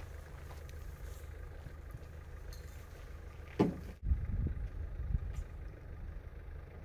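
Low rumbling background noise with a brief sharp sound about three and a half seconds in; after about four seconds the rumble gets louder and more uneven.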